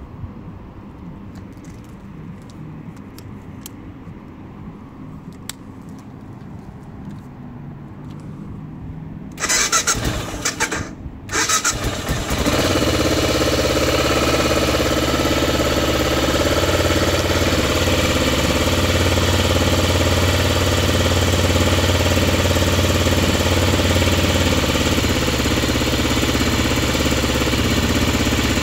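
BMW F650 Funduro's single-cylinder four-stroke engine cranked on the electric starter about nine seconds in, in two short bursts, catching on the second and then idling steadily.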